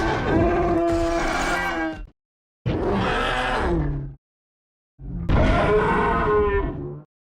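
Three custom King Kong monster roars, Monsterverse style. Each is a deep, pitched, bellowing call of about one and a half to two seconds, with a short silence between them. The middle roar's pitch falls toward its end.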